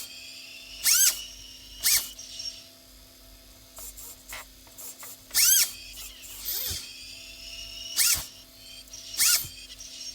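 RC car's turbo backfire effect firing in short hissing bursts, five times, each with a brief whistle that rises and falls, and fainter clicks in between.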